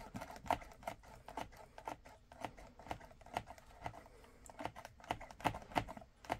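Repeated sharp plastic clicks, about two or three a second, from the pump top on a bottle of epoxy resin hardener being pressed over and over; the pump is not dispensing.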